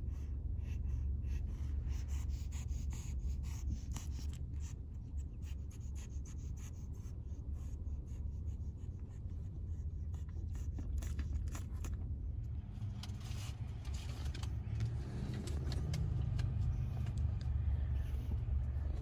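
Steady low rumble of a car's cabin, with light close scratching and rustling over the first twelve seconds or so.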